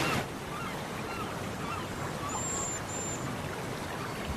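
Steady rush of river water over rocks and rapids, with faint bird calls scattered through it: short chirps and two brief high whistles about halfway through.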